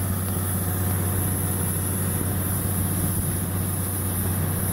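Drilling rig running steadily, a constant low drone with an even hiss over it, as compressed air is blown down the borehole.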